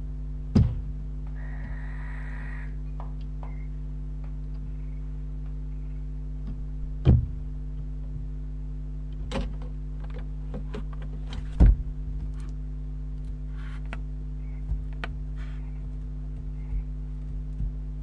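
Barn owls moving about inside a wooden nest box: sharp knocks and thumps on the wood, three loud ones and several lighter clicks, over a steady low electrical hum. A brief hiss comes about two seconds in.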